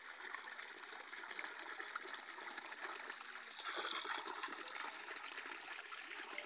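Steady rush of running water at a camel watering point, briefly louder about four seconds in.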